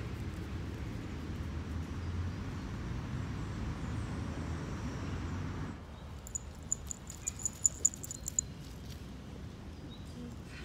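Small bell on a dog's collar jingling in a quick run of rings as the dog trots along, starting about six seconds in. Before that, a steady rushing noise that stops suddenly.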